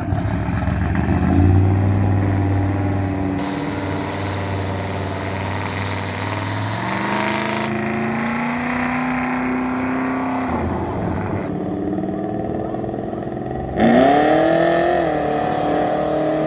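A vintage car's engine accelerating away, its pitch rising and stepping up through the gears, then fading into the distance. About fourteen seconds in, a second vehicle passes close by, louder, its engine rising in pitch.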